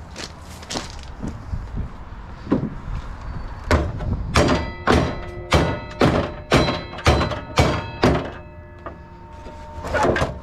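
Hammer striking the metal parts of a table saw: a few light taps, then a run of eight or nine hard blows at about two a second, each leaving a metallic ring, as a stuck mechanism is knocked loose.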